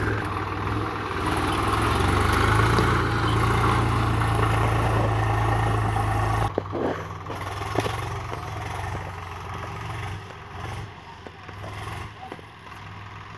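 Swaraj tractor's diesel engine running steadily under load while pulling a disc harrow. About six and a half seconds in, the sound drops off suddenly and the engine is heard more faintly after that.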